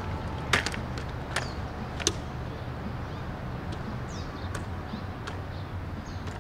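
The metal frame of a collapsible utility wagon clicking and clacking as it is unfolded and snapped open: a few sharp clicks in the first two seconds, then fainter ticks. A steady low outdoor rumble runs underneath.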